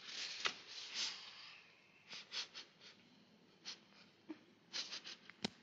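Quiet breathing: a long breathy exhale or sigh, then a string of short puffs of breath, and a single sharp click near the end.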